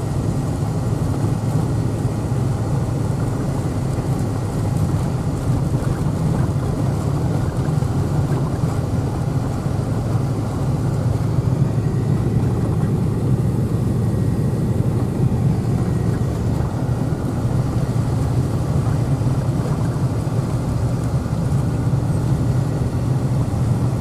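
Steady road and engine noise of a vehicle driving on a snow-covered, unplowed road, with a low hum and no changes.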